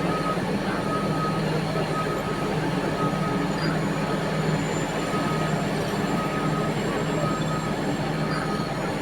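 Heavy mining machinery's diesel engines running steadily, with a reversing alarm beeping about once a second.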